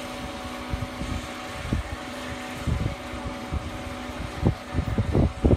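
Wind buffeting the microphone in irregular low thumps that grow stronger near the end, over a steady faint hum.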